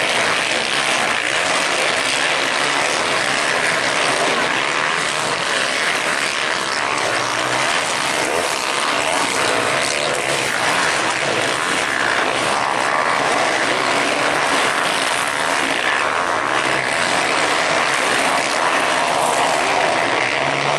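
Several motocross bikes' engines running hard around a dirt track, blending into a dense, steady buzzing drone.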